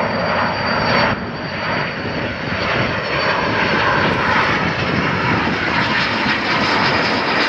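Two L-39 Albatros jet trainers' turbofan engines at takeoff power: a loud, steady jet rush with a thin high turbine whine running over it.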